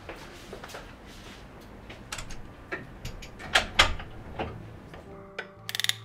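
A few scattered knocks, then near the end a quick run of sharp clicks from a long electric lighter sparking to light a gas stove burner.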